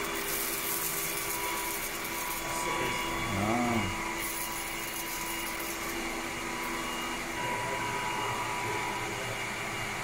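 Robot vacuum and floor-washing cleaner running as it drives across a tiled floor: a steady motor hum with a few fixed tones and a hiss that comes and goes. About three and a half seconds in there is a brief rising-then-falling tone.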